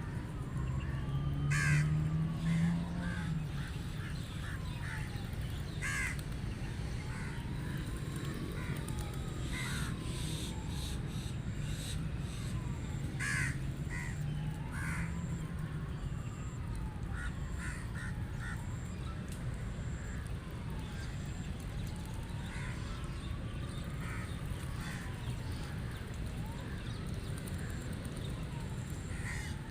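Rook cawing, short single calls every few seconds, over a steady low rumble and a faint tone that rises and falls about every four seconds.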